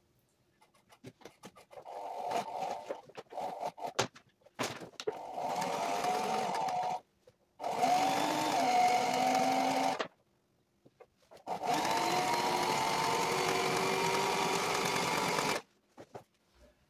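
Sailrite sewing machine stitching a seam in sailcloth. A few light clicks and short stop-start bursts come first, then it runs steadily in three stretches of a few seconds each with brief stops between, its pitch shifting a little as the speed changes.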